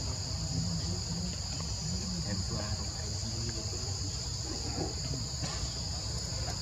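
Steady insect chorus: a continuous high-pitched buzz in two close pitches, over a low background rumble.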